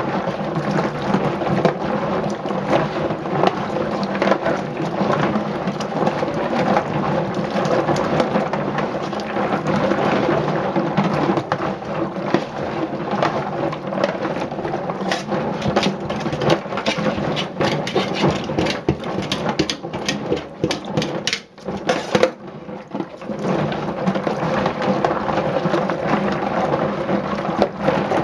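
Black walnuts in their shells clattering against each other and the stainless steel sink in water as gloved hands scrub and swish them with a brush, with a brief pause about 21 seconds in. The clatter is getting louder, a sign that the gooey hull residue is coming off and the nuts are getting cleaner.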